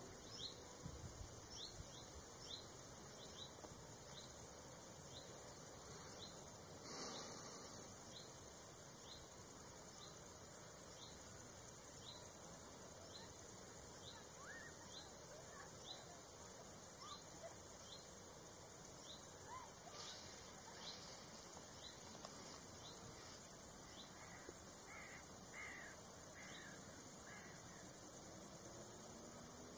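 Chorus of crickets: a continuous very high-pitched buzz with short breaks, joined by a fainter chirp repeating about twice a second. A few faint bird calls come in the second half.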